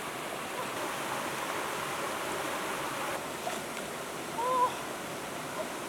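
Steady rush of flowing river water, with a brief high-pitched call about two-thirds of the way through.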